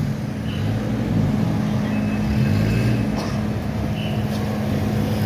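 A motor vehicle engine running steadily with a low, even hum, and a few faint clicks.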